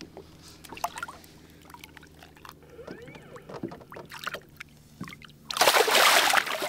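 A released fish kicks away from a hand at the boat's side, throwing up one loud splash of water about five and a half seconds in that lasts about a second. Before it come a few light knocks and small drips and sloshes as the fish is lowered into the water.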